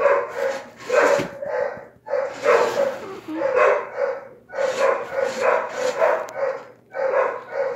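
Several dogs barking together in a chorus, in runs of quick barks that come in groups about every two seconds, so that it sounds like a song.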